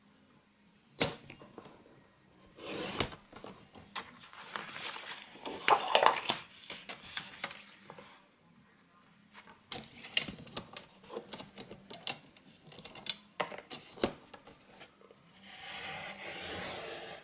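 Cardstock being handled and cut on a sliding-blade paper trimmer: scattered clicks and taps as the sheet and the trimmer's parts are moved, and stretches of paper rubbing and sliding. Near the end comes a steady scraping swish lasting about two seconds.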